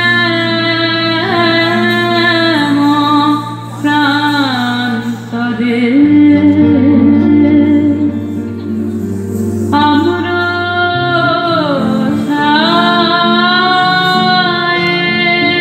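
Song music: a woman singing a slow melody in long held notes that glide and bend, over a steady low instrumental accompaniment.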